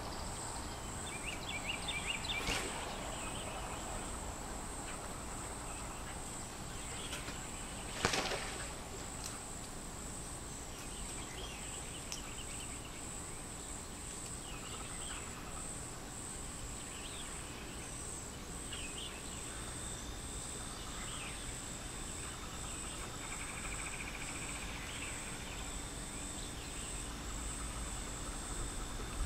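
Insects trilling in a steady, high-pitched, pulsing chorus, with scattered faint bird chirps. Two short sudden noises stand out, about two and a half and eight seconds in, the second the louder.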